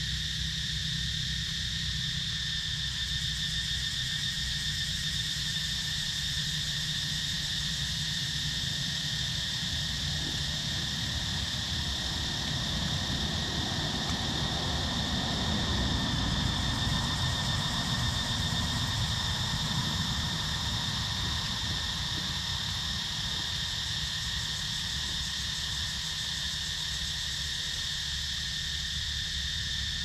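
Steady droning chorus of forest insects, a constant high-pitched buzz with no breaks. A low rumble swells and fades under it in the middle.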